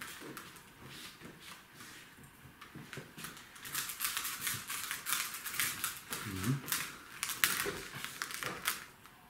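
Kittens playing with a feather wand toy on an upholstered cat-tree shelf: irregular rapid clicking and scratching from claws and the toy, busiest in the second half.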